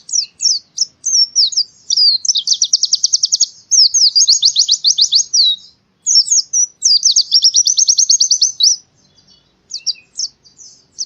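White-eye (pleci) singing: high, quick chirps and three long, very fast trills of rapidly repeated downward-sweeping notes, each trill lasting about two seconds.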